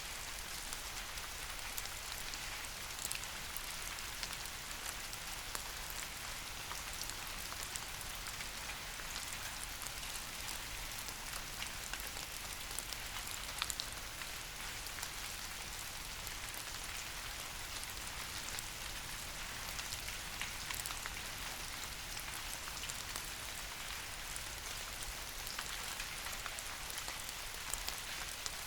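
Steady rain falling on leaves, an even hiss with many small sharp drop ticks.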